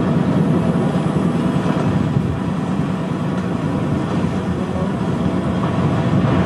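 Steady engine and road noise of a moving vehicle, a continuous low rumble with no breaks.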